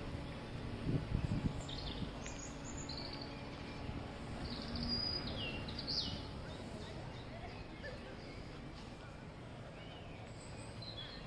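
Small birds chirping in short calls now and then over steady outdoor background noise, with a brief low rumble about a second in.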